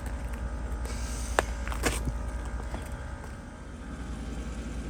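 Steady low rumble of a car engine running, with two sharp clicks about a second and a half and two seconds in.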